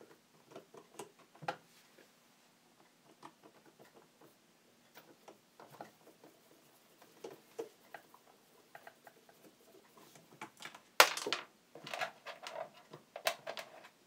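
Screwdriver turning out screws and hands handling the plastic motor housing of a table fan: light scattered clicks and scrapes, with a few louder knocks near the end.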